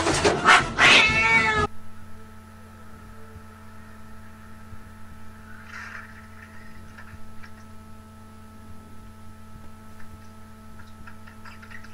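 A cat meowing loudly, its cries rising and falling, for the first second and a half as it is held, then cut off abruptly. After that there is only a steady low hum with a few faint taps.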